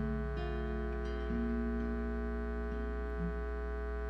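Slow, soft recorded song with plucked guitar notes and long held tones, played over a steady low electrical hum.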